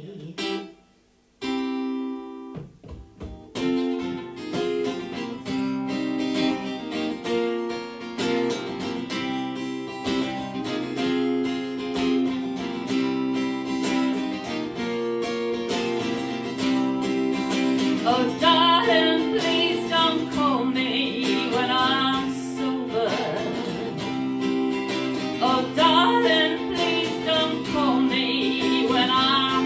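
Acoustic guitar played live, strummed and picked in a steady accompaniment after a brief pause about a second in. A voice sings over it without clear words from a little past halfway, in two phrases.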